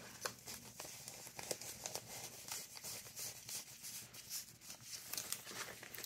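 Faint rustling and crinkling of paper, many small crackles, as loose old papers are slipped into a paper pocket and the pages of a chunky handmade journal are handled.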